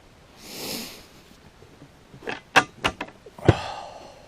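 Fishing rod and reel being cast and handled: a brief whoosh, then a quick run of sharp clicks and knocks, the loudest one near the end.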